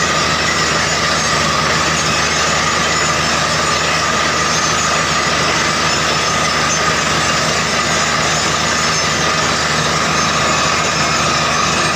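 Truck-mounted borewell drilling rig running steadily under load, a constant engine noise with a steady high whine over it. The rig is drilling a bore that has struck water at about 135 feet, and muddy water is being forced up around the drill pipe.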